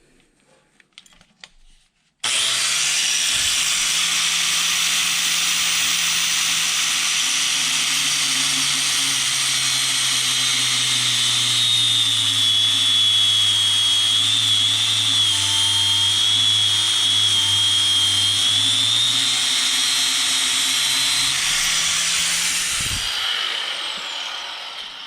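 Handheld rotary power tool cutting through a battery cable, used in place of a cable cutter: a steady high whine with grinding noise that starts suddenly about two seconds in, runs for about twenty seconds, then shuts off and winds down in falling pitch near the end.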